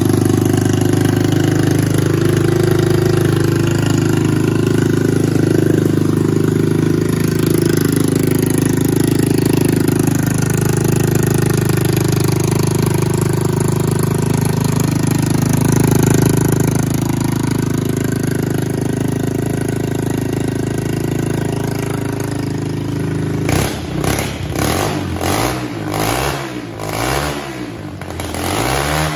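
Honda CB125E's 125 cc air-cooled single-cylinder engine running with no muffler, the bare open exhaust giving a loud, steady idle. Near the end the sound turns uneven, surging up and down in short pulses.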